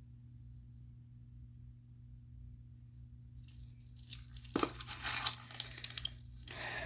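Plastic packaging being crinkled and torn open by hand, with sharp crackles from about three and a half seconds in; before that only a faint low hum.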